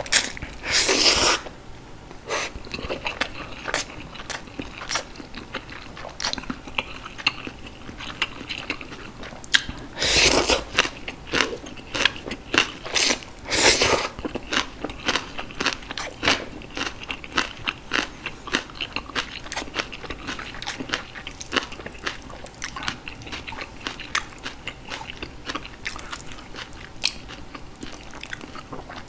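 Close-miked eating: a person chewing green onion kimchi and Jjapaghetti noodles, with many short, wet, crunchy clicks from biting and chewing. There are three longer noisy bursts: about a second in, around ten seconds in, and again a few seconds later.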